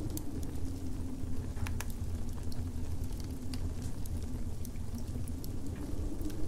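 Steady low wind rumble with a howling tone that sinks and then rises again, under scattered sharp crackles of a wood fire.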